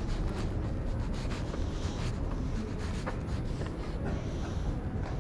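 Rubbing and scraping noises, over a steady low rumble.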